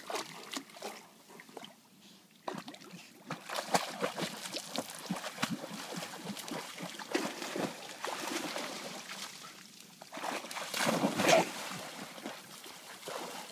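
Dogs splashing and paddling through creek water in irregular sloshing splashes, starting sparse and growing busier after a couple of seconds, with the loudest splashing about eleven seconds in.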